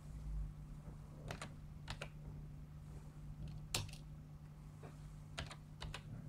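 Computer keyboard keystrokes, about five scattered key presses, each a quick double click, as AT commands are typed to a serial modem. A steady low hum runs underneath.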